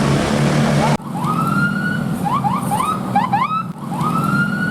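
Bus 'telolet' horn sounding a pattern of rising whoops, one long rise followed by several quick ones, played twice over a steady low engine hum. The first second before a sudden cut is a noisy engine rumble.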